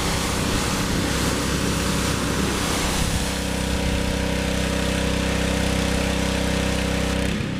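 Pressure washer running steadily, its engine note under the hiss of the high-pressure water jet spraying the mower.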